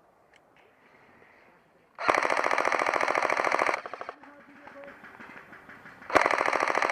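Airsoft electric gun firing two long full-auto bursts of rapid, evenly spaced shots, the second starting near the end.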